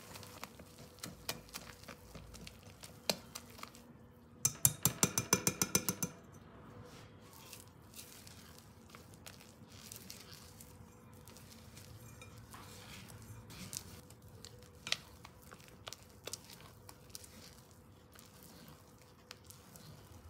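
Wire whisk beating flour into a wet banana batter in a glass bowl, its wires clicking against the glass, with a quick run of about ten loud taps about four seconds in. Later a fork stirs the thick batter, with soft scrapes and occasional clinks on the glass.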